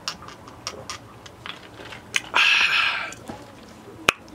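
A person drinking from a plastic cup: small wet mouth clicks and gulps, then a loud hissing rush lasting under a second about two and a half seconds in, and one sharp click near the end.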